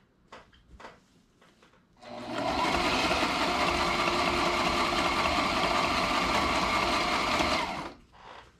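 Sewing machine stitching through heavy cushion fabric in one steady run of about six seconds, starting about two seconds in and stopping abruptly shortly before the end. A few faint clicks of fabric handling come before it starts.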